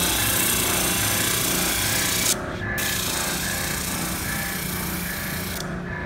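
Oscillating spindle sander running, its sanding drum grinding against the curved edge of a wooden board with a loud, hissing rasp over the motor's hum. The sanding hiss drops out briefly a little over two seconds in. It stops near the end as the board comes off the drum, leaving the machine running.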